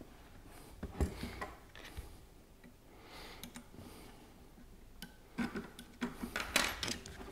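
Scattered light clicks and knocks from the jigsaw and its small parts being handled, a few about a second in and a quicker cluster near the end.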